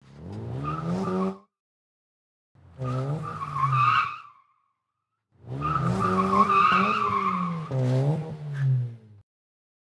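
Car tyres squealing over a revving engine, in three bursts, the longest near the end, the engine pitch rising and falling within each.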